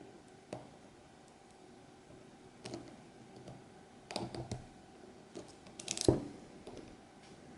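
Scattered small metallic clicks and taps of a lock pick and tension wrench working the pins of an ASSA Twin 6000 cylinder, the loudest about six seconds in.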